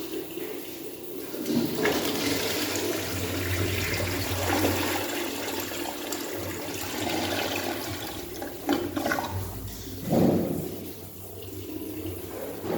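One-piece toilet flushing: a rush of water starts about two seconds in and runs steadily, with a louder gush about ten seconds in before it tails off.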